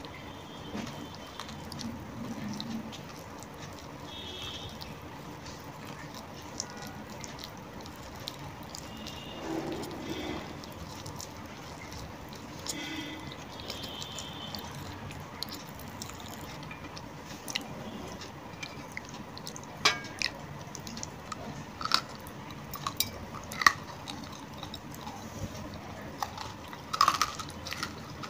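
Crunching and chewing of dry white clay lumps: sharp cracking bites, sparse at first and coming more often and louder in the second half.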